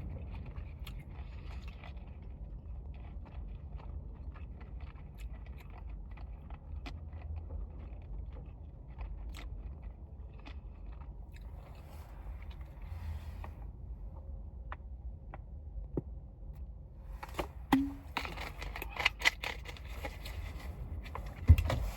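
A person chewing noodles, with many small, soft mouth clicks. About three-quarters of the way through comes a louder run of sharp, crackly sounds.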